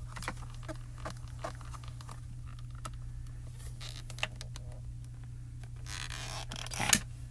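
Light taps and clicks of hands working a clear stamp-positioning platform: pressing the stamp down through its closed hinged door, then lifting the door. A short rustle and one sharp click come near the end, over a steady low hum.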